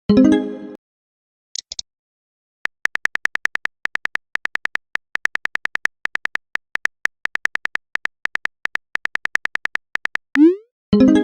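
Smartphone chat sound effects: a message chime, then a long run of short, even keyboard-tap clicks, several a second, as a message is typed. A short rising blip and another chime come near the end.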